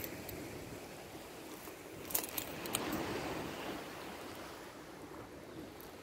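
Steady outdoor background hiss, with a few light clicks a couple of seconds in.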